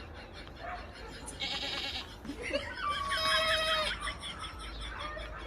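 A single long goat bleat about two and a half seconds in, held on one pitch for over a second.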